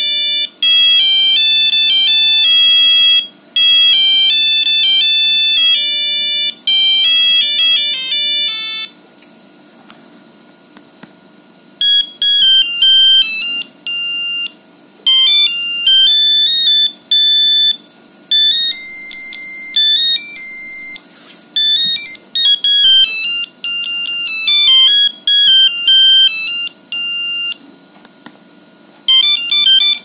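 Nokia 5210 monophonic ringtones playing from the phone's own speaker as single rapid beeping notes, one at a time. One tune ends about nine seconds in, a second plays after a pause of about three seconds, and a third starts just before the end.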